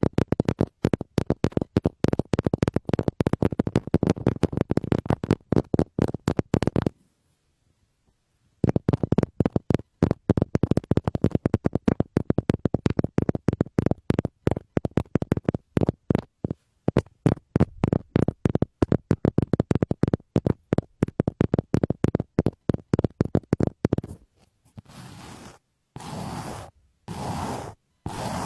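ASMR 'helicopter' trigger: hands beating fast past a binaural microphone make a rapid, even flutter of soft thumping pulses, many a second, with one brief pause about seven seconds in. Near the end it gives way to slower scraping strokes, each about a second long.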